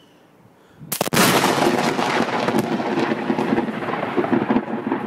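A close lightning strike: a sudden, sharp thunderclap about a second in, followed by loud thunder crackling and rumbling on.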